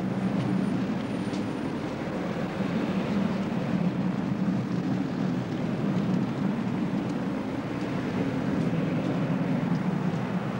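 Steady low rumble of jet airliner engines at an airport.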